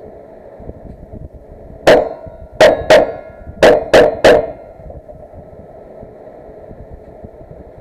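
Six gunshots in quick succession on a cowboy action shooting stage: one shot about two seconds in, then a pair, then three, all within about two and a half seconds.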